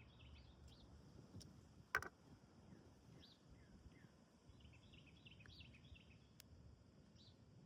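Near silence with faint birds chirping in the background and one sharp click about two seconds in.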